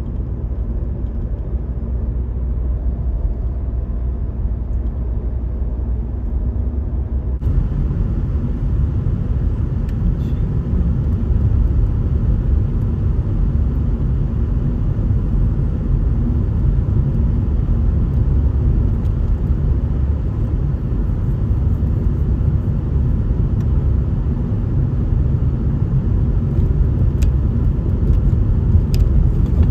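A small car driving along a road, with steady engine and road rumble; the noise grows fuller and a little louder about seven seconds in.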